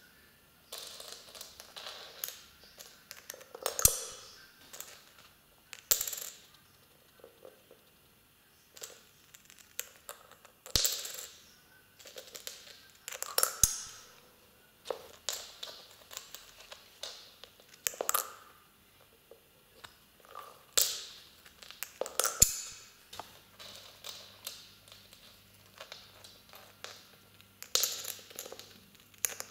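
Coins clinking as they are dropped one at a time into a small piggy bank and knocked about on a wooden table: several sharp, briefly ringing clinks spread irregularly, with lighter clicks and rattles between.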